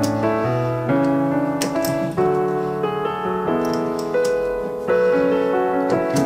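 Background music with piano playing chords and a melody.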